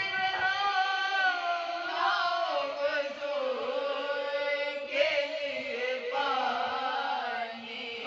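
Unaccompanied women's voices chanting a marsiya, a mourning elegy: a lead voice at the microphone with three others singing along, in long held notes that slide from pitch to pitch.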